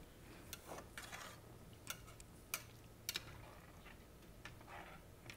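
Faint, scattered clicks of a metal slotted spoon tapping against a speckled enamel pot as rice is stirred in its cooking water.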